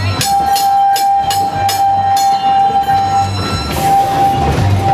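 Vintage electric streetcar arriving, its whistle sounding one long steady tone that breaks off about three seconds in and then starts again. Quick clicks run over it for the first couple of seconds.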